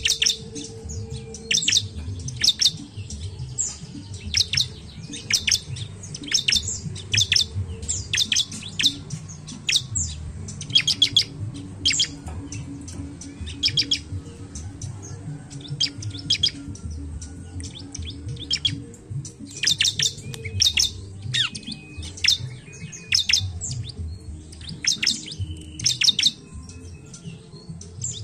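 Bar-winged prinia (ciblek) singing: quick clusters of sharp, high chirping notes, repeated again and again, over a low background hum.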